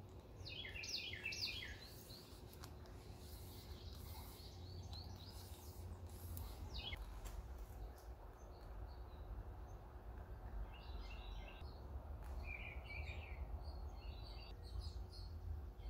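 Wild birds chirping in short runs of quick, stepped notes, about a second in and again several times in the second half, over a low steady background rumble.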